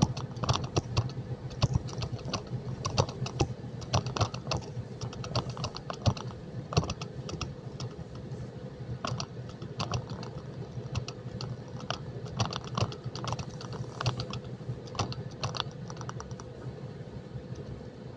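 Truck engine running at a steady hum, with many irregular sharp clicks and rattles on top, typical of loose parts knocking in a truck cab.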